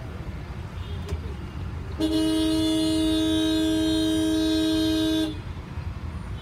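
A vehicle horn sounds one long, steady blast of several tones together, starting about two seconds in and cutting off sharply after about three seconds. A low engine rumble runs underneath.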